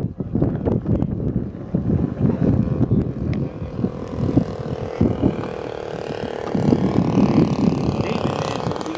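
Quad-35 two-stroke petrol engine of a quarter-scale radio-control Nieuport 17 biplane droning steadily in flight, its pitch rising slightly near the end. Gusty wind rumble on the microphone is heard throughout and is louder than the engine.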